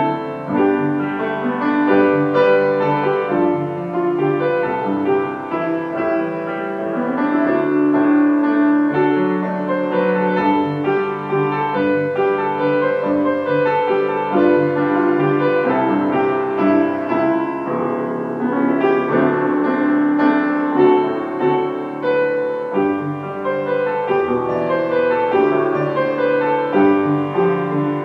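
Solo grand piano playing a continuous piece of held, overlapping notes.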